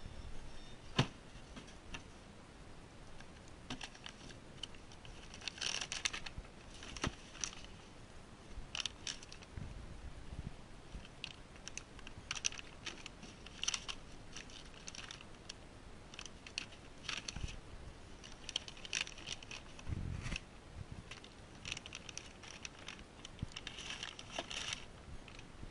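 Handling noise from a car diagnostic scanner kit in its case: clear plastic bags crinkling and rustling, and plastic adapters and cables clicking and knocking against the case, in scattered bursts. There is a sharp click about a second in and a few dull thumps.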